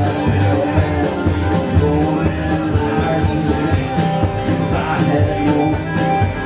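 Live bluegrass-Americana band playing an instrumental break with a steady rhythmic beat: sustained melody notes over bass and strummed or percussive accompaniment.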